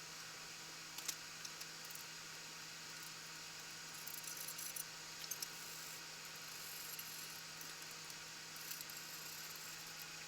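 Quiet room tone: a steady hiss with a faint hum, broken by a few light clicks and rattles about a second in and again around four to five seconds in.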